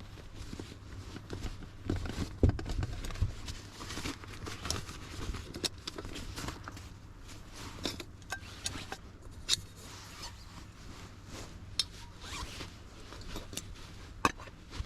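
Irregular rustling with many sharp clicks and small knocks, as of gear being handled at close range, with a few low thumps about two to three seconds in.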